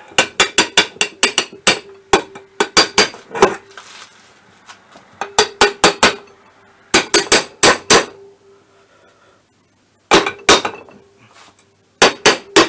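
A hammer taps the heated aluminium crankcase half of an MBK Spirit scooter engine, seating it down over the crankshaft bearing. The strikes come in quick runs of about five a second, broken by short pauses, and the case rings briefly after them.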